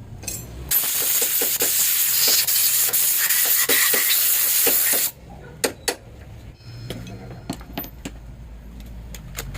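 A steady hiss of pressurised air or gas let out in one burst of about four seconds, starting and cutting off sharply, followed by a few light metal knocks and clinks.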